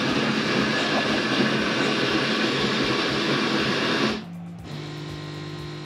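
Siemens EQ500 fully automatic coffee machine starting a latte macchiato: its built-in grinder runs loudly for about four seconds and stops abruptly. The machine then settles into a quieter, steady hum.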